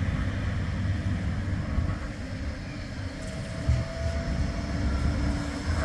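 Bombardier Flexity 2 tram approaching slowly under a speed restriction, with a faint whine that rises gently in the second half over a steady low rumble.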